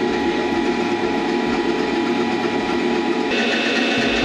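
Hydraulic pump of a load-test rig running steadily, a mechanical drone with several steady tones; the sound changes abruptly about three seconds in.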